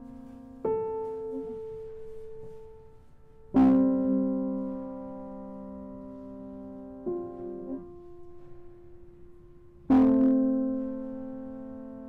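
Grand piano played slowly: four sustained chords struck a few seconds apart, each left to ring and fade, the second and fourth the loudest.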